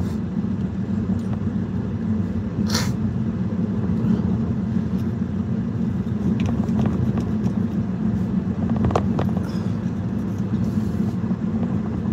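Steady low drone of engine and tyre noise inside an Audi A3's cabin while driving, with one short sharp knock about three seconds in.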